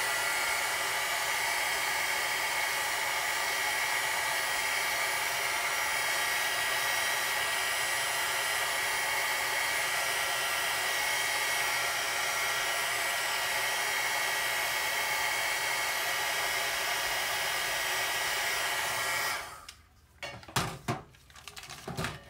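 Handheld craft heat gun blowing steadily as it heats a store receipt to darken it: an even rush of air with a faint high whine. It cuts off about three-quarters of a second before the end of the sound, leaving a few light knocks as the receipt is handled.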